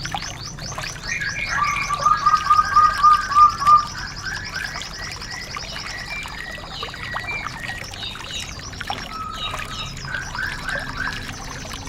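Recorded songbird song played as a training track for white-eyes: fast, high trills run throughout, and from about one to four seconds in a louder run of quick repeated lower whistled notes joins them.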